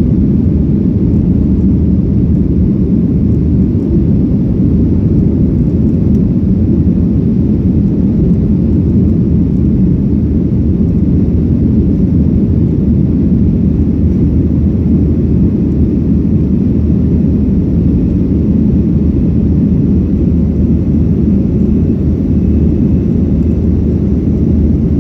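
Boeing 737 jet engines heard from inside the passenger cabin: a steady, even low rumble that does not change.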